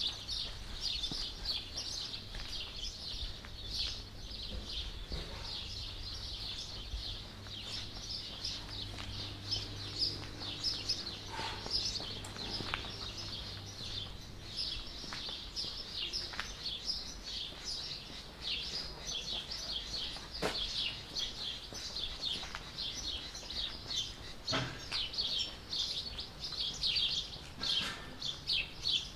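Many small birds chirping and twittering without a break. A faint low hum runs under the first half, and a few sharp clicks stand out.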